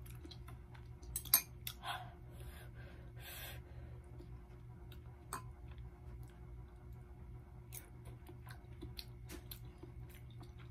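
Eating from a glass bowl with a metal fork: scattered sharp clicks of the fork against the glass, the loudest about a second in, with soft chewing between, over a steady low hum.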